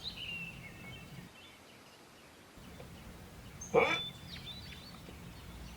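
Birds chirping in short high notes, then one short loud squawk about four seconds in.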